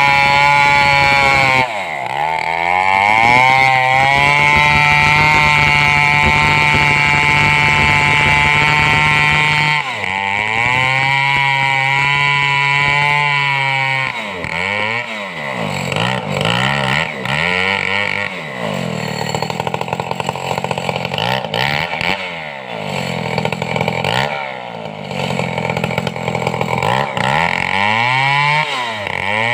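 Stihl two-stroke chainsaw running hard. About two seconds in its pitch drops and holds lower, as the saw pulls down under load in the cut. From about halfway on, the revs fall and rise again and again.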